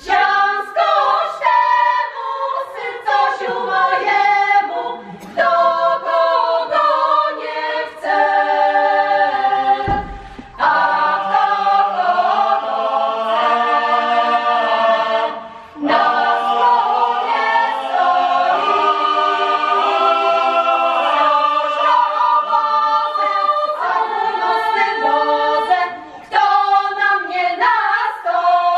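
Folk choir singing an unaccompanied Kurpie folk song in several voice parts, pausing briefly between phrases about ten and fifteen seconds in.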